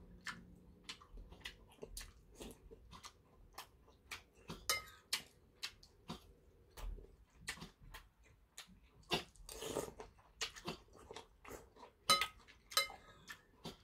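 Metal spoon clicking and scraping against a large ceramic soup bowl as soybean-paste soup is stirred and scooped, with short sharp clicks scattered throughout and soft chewing between them.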